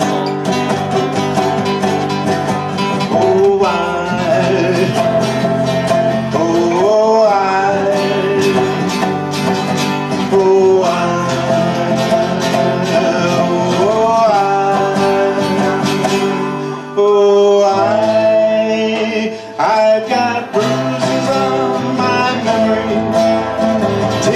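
Live acoustic folk song: two acoustic guitars played together, with a man singing over them.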